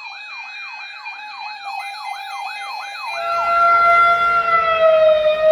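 Electronic siren in a fast yelp, each sweep falling in pitch, about two and a half sweeps a second. About three seconds in it changes to a steady held tone that slowly sinks in pitch, as a low rumble builds underneath and the sound grows louder.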